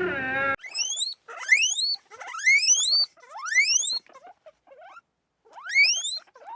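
A small animal's shrill squeals, each rising steeply in pitch, repeated in quick bunches of two or three with a short pause near the middle. A lower animal call cuts off in the first half-second.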